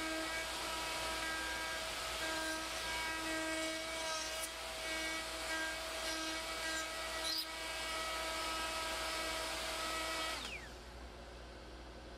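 Router on a Leigh FMT mortise-and-tenon jig running at speed while cutting a tenon in walnut, a steady high whine over the rush of the cut. About ten seconds in the whine cuts off and drops away with a brief falling pitch, leaving a quieter hum.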